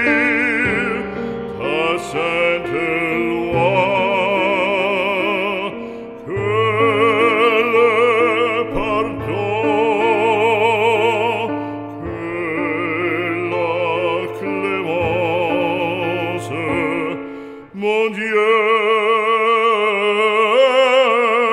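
Background music: a French sacred song sung in an operatic style, long held notes with wide vibrato over a steady instrumental accompaniment, with brief breaths between phrases.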